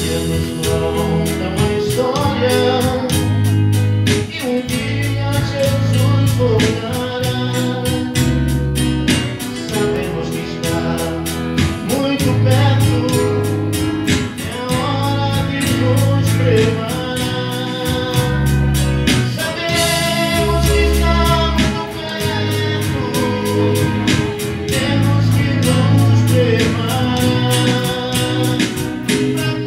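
Live gospel song: a man singing into a microphone, accompanied by his acoustic guitar and an electronic keyboard.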